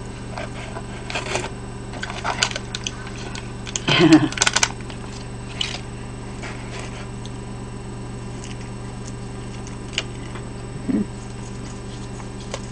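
Plastic food glove and cardboard pizza box rustling and crackling in short scattered bursts as a slice of pizza is pulled from the box, over a steady low electrical hum.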